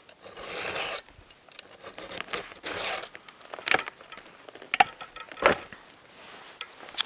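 Round file rasping across a chainsaw chain's cutting tooth in about three strokes, followed by several sharp metallic clicks.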